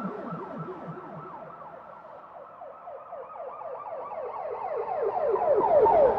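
Police siren in a fast yelp: rapid falling sweeps, about five a second. It fades to its quietest about two and a half seconds in, then grows louder until it is loudest near the end.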